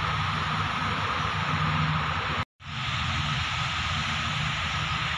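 Steady hissing outdoor background noise with a low rumble and a faint steady tone in the middle. It drops out completely for a split second about halfway through, then resumes unchanged.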